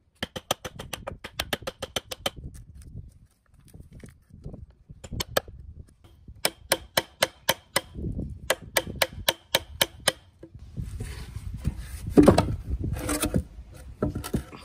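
Wood chisel cutting a notch out of a softwood railway sleeper: runs of quick, evenly spaced sharp strikes, then rougher scraping and splitting wood with one loud crack about twelve seconds in.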